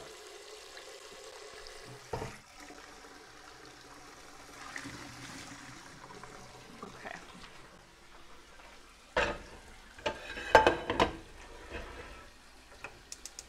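Water running from a kitchen faucet into a large metal pot. Then come several loud metal knocks and clanks as the pot is set down on a gas stove's grate, followed by a few light clicks near the end.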